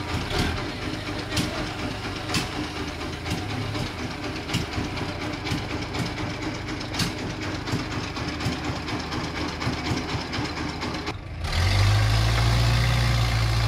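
Sawmill machinery running steadily, with scattered knocks and clatter. About eleven seconds in, the sound changes abruptly to a louder, steady low hum.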